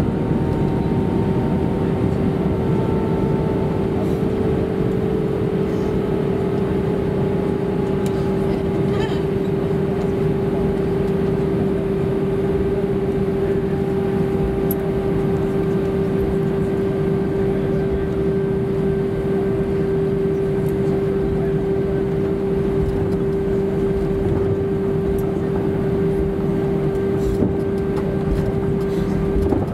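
Airbus A320-232's IAE V2500 engines running at low taxi power, heard inside the cabin as a steady hum with one strong held tone.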